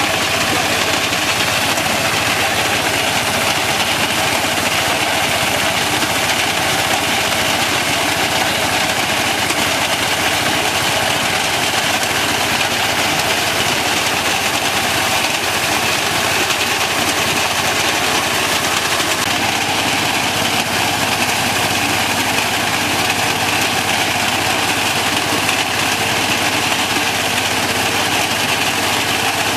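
Tractor engine running steadily, with a slight change in its tone about two-thirds of the way through.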